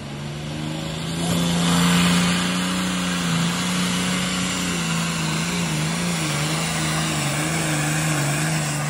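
Diesel engine of a pulling tractor at full throttle, dragging a weight-transfer sled down the track. The drone swells sharply about a second in, then holds steady under load with a slightly wavering pitch.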